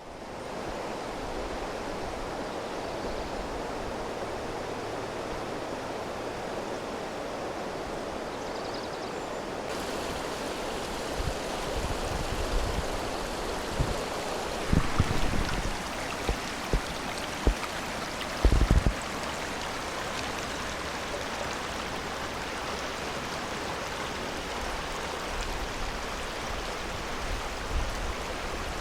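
Stream water rushing steadily over rocks. A few brief low thumps come near the middle.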